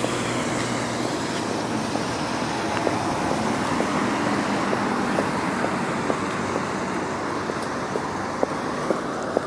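Road traffic going by: a small kei truck's engine hum fades away about a second in, then a steady hiss of cars passing on the road swells and eases off. Faint footstep clicks on stone paving are heard underneath.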